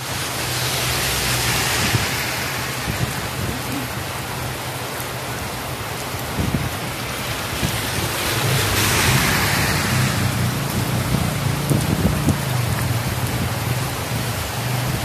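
Heavy rain pouring onto a paved road and wet ground in a thunderstorm, a dense steady hiss that swells twice, with a low steady hum underneath.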